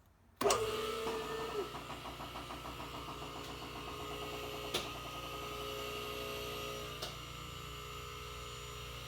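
Car lift's electric hydraulic pump motor starting about half a second in and running steadily with a fast, even pulsing as the lift raises the car. Two sharp clicks are heard partway through.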